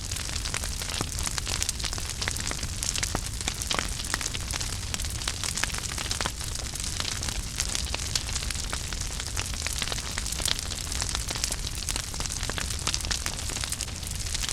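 Wood fire crackling in a fireplace: irregular sharp pops and snaps over a steady hiss and a low rumble of the flames.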